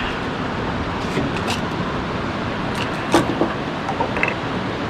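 Steady rushing wash of beach surf and wind, with a few small clicks and taps of fishing tackle being handled.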